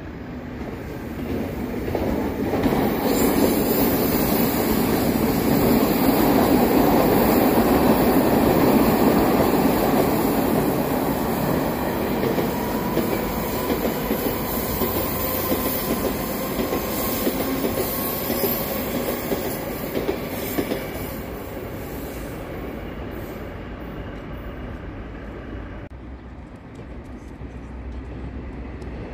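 Metro train of blue-and-white cars passing on open track, its wheels rumbling and clattering over the rails with some wheel squeal. It builds about two seconds in, is loudest a few seconds later, and fades away in the last third.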